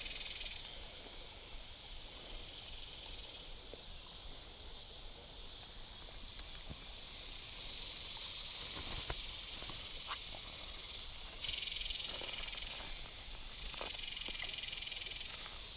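Insect chorus outdoors: a steady, high-pitched buzzing hiss that swells suddenly about eleven seconds in, dips briefly, and comes back near the end, with a few faint clicks.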